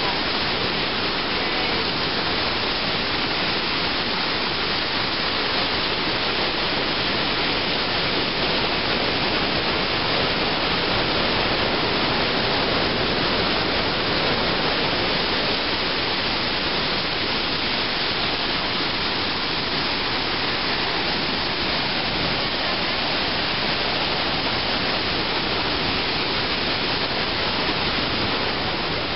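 The loud, steady rush of the Iguaçu Falls heard at close range: a huge curtain of water pouring into its misty gorge, an even wash of noise with no pauses or changes.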